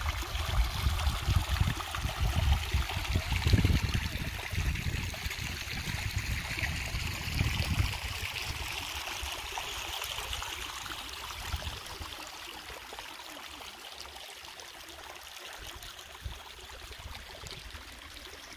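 A small mountain brook trickling and splashing over stones, a steady rushing hiss, with an uneven low rumble over it in the first half that fades out.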